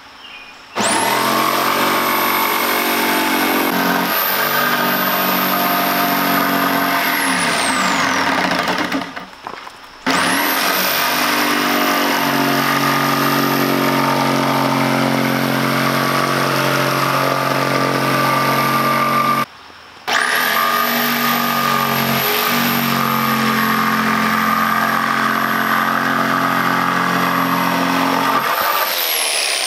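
Corded electric jigsaw cutting plywood: a steady motor whine with the buzz of the blade, in three long runs. Each run starts with a rising whine, and the first winds down with a falling whine before the saw starts again.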